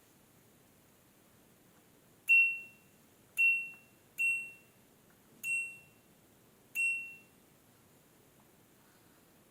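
LG F80C3LD washing machine's electronic beeper sounding five short, high beeps of the same pitch at uneven intervals, each starting sharply and fading out.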